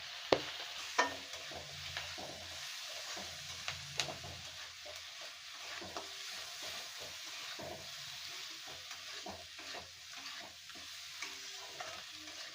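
Chutney ingredients (onion, tomato, grated coconut and spices) sizzling as they fry in a pan while being stirred, with a few sharp clicks of the stirring spoon against the pan in the first few seconds.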